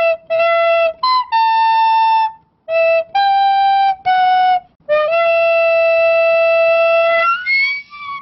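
Intro music: a single-voice wind-like melody of about eight separate notes. The last note is held for about two seconds, then the tune ends in short upward slides.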